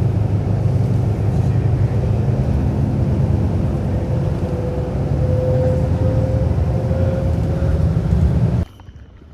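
Steady low rumble of a moving vehicle heard from inside, with a faint whine rising slightly in the middle. It cuts off suddenly near the end.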